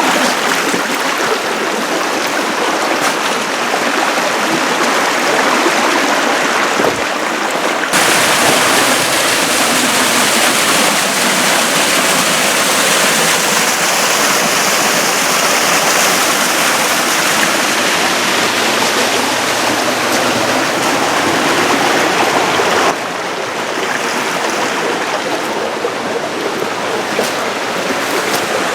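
Canyon creek rushing over rocks, running high after rain. The steady water noise turns abruptly louder and hissier about 8 seconds in and drops back about 23 seconds in.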